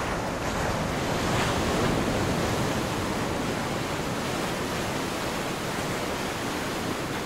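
Sea waves washing steadily, with wind rumbling on the microphone.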